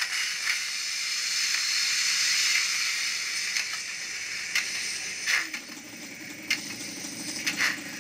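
Steam hiss from an N-scale BR 18 model steam locomotive standing at the platform. About five and a half seconds in, a steady motor hum sets in as the locomotive starts to move off, with sharp clicks about once a second.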